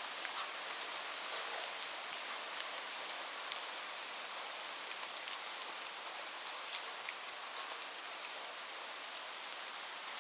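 Steady rain falling, an even hiss with scattered sharp drop ticks striking a surface.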